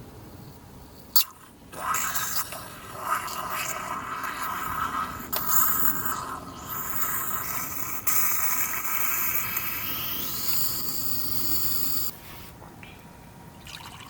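A click, then liquid running into a container for about ten seconds, the pitch of the filling rising near the end; it cuts off suddenly.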